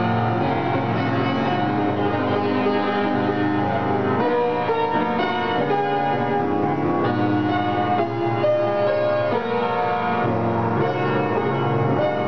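Upright piano being played, a run of chords and melody notes with notes left to ring over one another.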